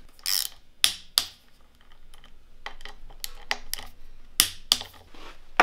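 Hand ratchet driver clicking as the bike's stem faceplate bolts are snugged down in turn: a dozen or so sharp, irregularly spaced clicks.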